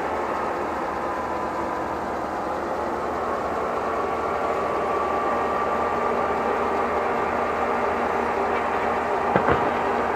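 Heavy diesel demolition machinery running steadily, with a faint steady whine over the engine noise. Two short knocks near the end.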